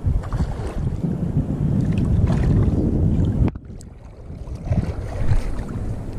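Wind buffeting the microphone: a loud, steady low rumble that drops away suddenly for about a second a little past halfway, then builds back up.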